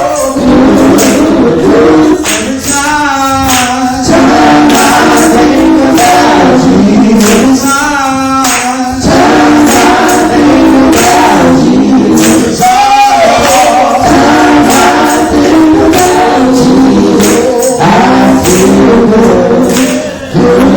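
Gospel music: voices singing long held notes over a steady tambourine beat.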